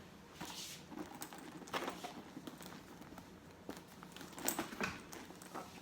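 Faint rustling and a few soft knocks as a backpack is handled and put on, its straps and body brushing against clothing.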